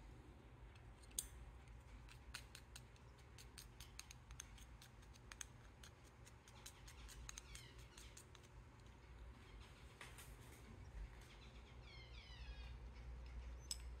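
Faint clicking and tapping of a plastic spatula against a small plastic cup as hand-feeding formula is stirred. Twice, around the middle and again near the end, a short run of faint, high, falling cheeps from baby birds begging.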